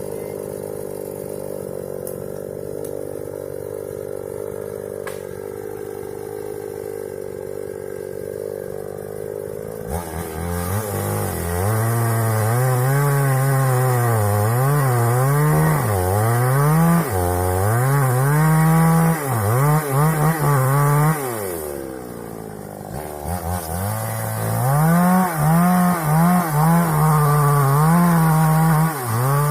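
Two-stroke chainsaw idling steadily for about ten seconds, then run at high revs while cutting sengon wood, its pitch rising and falling over and over. It drops back briefly about two-thirds of the way through, revs up again, and falls away at the end.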